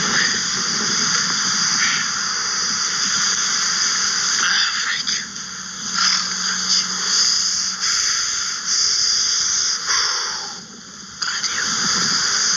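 Loud, continuous rustling and scraping of clothing and snow close to the microphone as a person flounders to climb out of deep snow, with a brief lull near the end.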